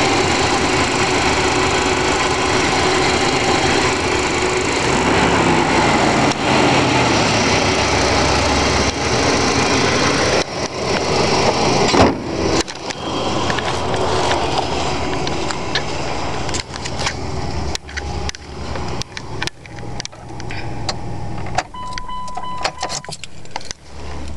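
2000 Dodge Dakota engine idling, heard close up just after a cold start, its idle easing down a few seconds in. About halfway through the running drops back and grows fainter under handling knocks and footsteps, with a short steady beep near the end.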